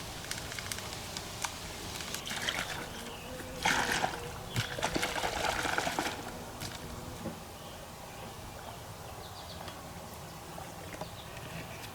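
Water trickling and sloshing in a drinking bottle, with scattered light clicks, as drink mix is stirred in; the liquid sounds come in a few bursts in the first half, then fade to a quiet background.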